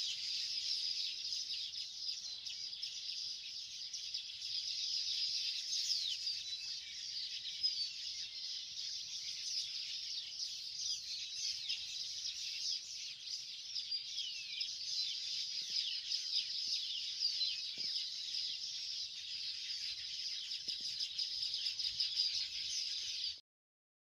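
A colony of baya weavers chirping together: a dense, continuous chorus of many high chirps and short whistles. It stops abruptly near the end.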